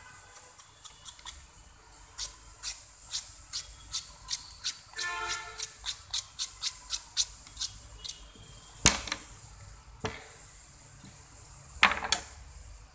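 A vegetable peeler scraping strips off a raw carrot in quick strokes, about two a second. A sharp knock comes near the middle and a louder clatter near the end, as a tool is set down on the plastic cutting board.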